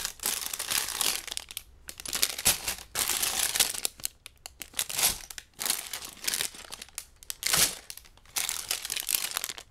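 Sealed plastic bags of LEGO pieces being handled and lifted out of their box: the plastic crinkles in irregular bursts with short pauses between them.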